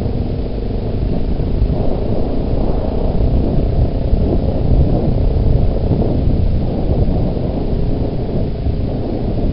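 Steady, loud low rumble of wind buffeting the microphone on a moving Yamaha Big Bear 400 ATV, with the machine's engine and tyre noise underneath.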